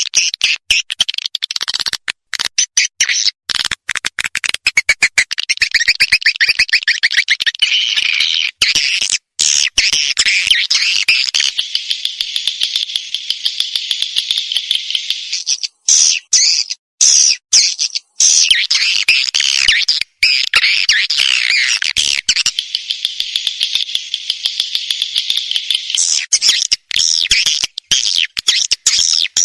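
Swiftlet calls from a swiftlet lure track (the 'suara panggil' played to draw edible-nest swiftlets into a nesting house): dense, rapid, high-pitched chirping and twittering with fast clicks, broken now and then by short sudden silences.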